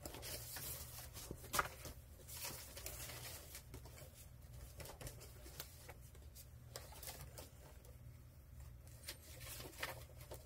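Soft, intermittent rustling and handling of loose paper sheets, such as old encyclopedia pages, with a steady low hum underneath.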